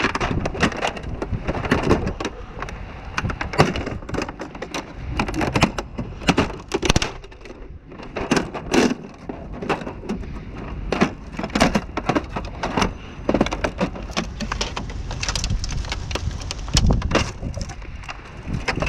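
Plastic printer housing being broken and pried apart by hand, with many irregular sharp cracks, snaps and clatters of plastic.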